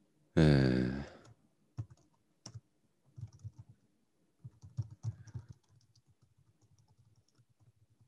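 Typing on a computer keyboard: scattered key clicks in short clusters. Near the start there is a brief, louder wordless hum from a man's voice.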